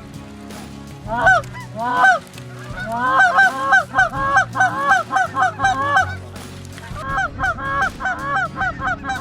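Canada goose honks, loud and close: two single honks, then quick runs of about three honks a second.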